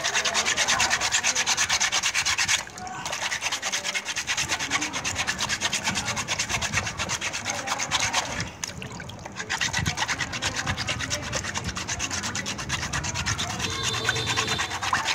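Fine sandpaper rubbed quickly back and forth by hand over a wet etched brass plate, sanding the blue paint off the raised image to polish the metal bright. The strokes are rapid and even, with two brief pauses, about three seconds in and again about nine seconds in.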